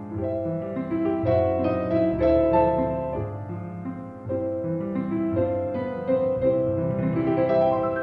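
Piano music: a melody played in held chords over a moving bass line.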